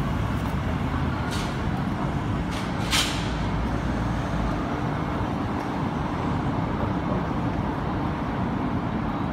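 Steady road traffic noise from a busy street, with a brief hiss about three seconds in.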